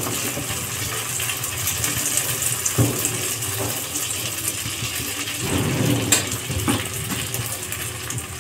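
Rice and urad dal batter sizzling in hot oil in a nonstick kadhai as the back of a steel ladle spreads it in circles, with a few soft scrapes and knocks of the ladle against the pan.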